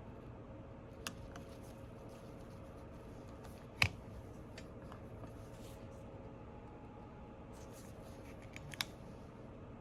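Small metal repair tools clicking and tapping on an iPhone 8's internals during reassembly: a few sharp isolated clicks, the loudest a little before the middle, over a faint steady hum.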